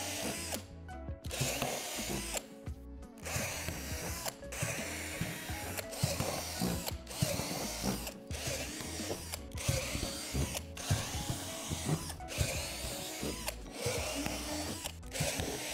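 Cordless drill with a 3/8-inch bit drilling through the divots of a plastic deck panel: about a dozen short bursts, each about a second long, with brief stops between holes.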